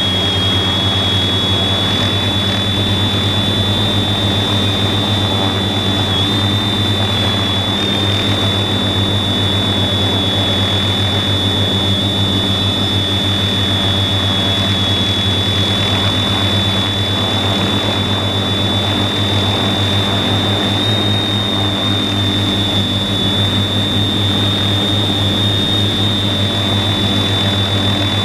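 TBS Discovery quadcopter's 400kv motors and 15-inch props running steadily while holding position, heard from the camera on the quadcopter itself: a loud, steady hum with a high whine that wavers slightly.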